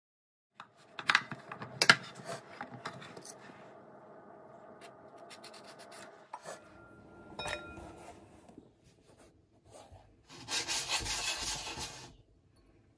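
Food-prep sounds: sharp knocks on a wooden chopping board and the rasping scrape of a blade shaving ribbons off a courgette. Near the end comes about two seconds of steady rushing noise.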